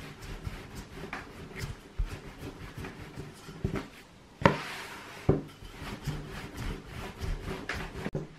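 Wooden rolling pin rolling pasta dough on a floured wooden table: rubbing strokes with repeated knocks of wood on wood. A louder thump about halfway through, as the sheet of dough is lifted and put back down.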